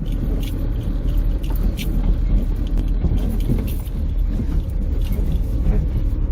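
Honda S2000's four-cylinder engine running at low speed as the car rolls over rough ground, with a steady rumble and scattered knocks and creaks from the damaged body and suspension.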